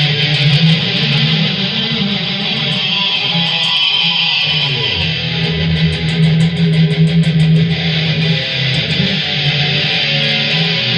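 Jackson Stealth electric guitar with its stock Jackson pickups, played through a DigiTech GSP2101 rack preamp into a Hughes & Kettner amp and a Marshall cabinet with Celestion speakers. It plays a continuous distorted metal riff, with the low notes briefly dropping out about four seconds in.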